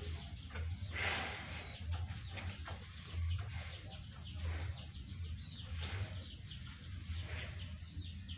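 Birds calling in short, scattered chirps, over a low pulsing rumble.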